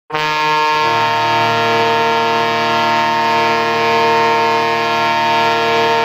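Hockey goal horn sounding one long, steady blast that starts abruptly just after the beginning and holds without a break.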